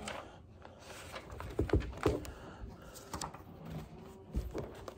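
Pages of a paperback book being turned and handled, with a few short rustles and taps.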